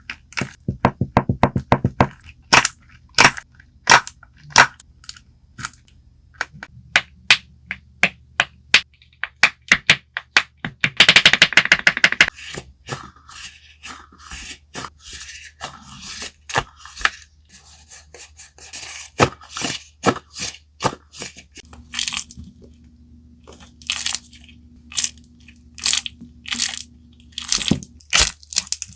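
A fidget toy being handled, giving sharp clicks and crackling snaps in an irregular series. About eleven seconds in there is a dense, rapid run of crackles.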